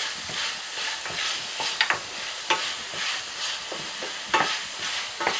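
Mutton pieces with onions and spices sizzling in a stainless steel pan as they are stirred, the spoon scraping and knocking against the pan now and then.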